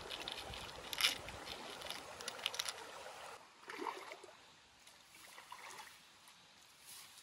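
Small metal fish hooks and a plastic hook box clicking and rattling as they are handled on gravel. A little over three seconds in this gives way to quieter sloshing of feet wading through shallow stream water.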